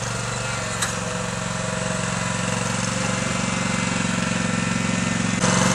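Kubota garden tractor's engine running steadily as it pushes snow with its front plow blade, getting suddenly louder near the end.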